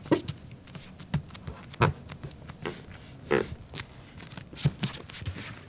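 A run of irregular knocks and taps, with three louder short noisy bursts about a second and a half apart.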